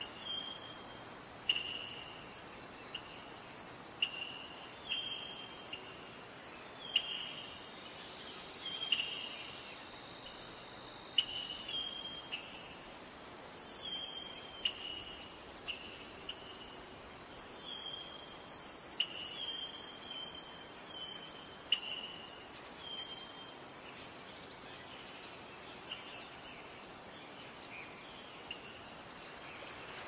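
A steady, high-pitched chorus of crickets or similar insects, with short falling chirps repeating every second or so and a few sharp clicks.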